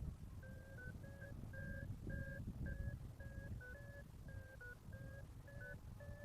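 Paragliding variometer beeping steadily in short electronic tones, about two to three beeps a second with small shifts in pitch: the vario's climb signal, the glider rising in lift. Low wind rumble on the microphone runs underneath.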